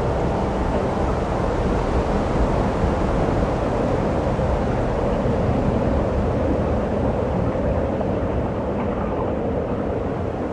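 A large reindeer herd trampling through snow: a steady, dense rumble and crunch of many hooves, fading slightly near the end as the last animals pass.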